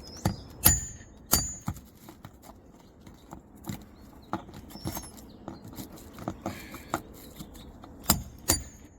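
Metal roof snake nailing tool striking to drive a roofing nail under a shingle: sharp metallic clanks with a brief ring. There are several hard strikes in the first two seconds, lighter taps through the middle, and two hard strikes near the end.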